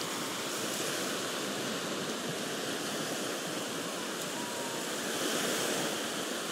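Ocean surf: small waves breaking and washing up the beach in a steady rushing hiss, swelling a little about five seconds in.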